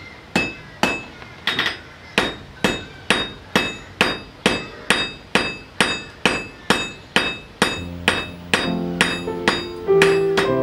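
Blacksmith's hand hammer striking hot iron on an anvil in a steady rhythm, about two and a half blows a second, each with a short metallic ring. The smith is drawing out a point, turning the bar between blows. About eight seconds in, keyboard music comes in over the hammering.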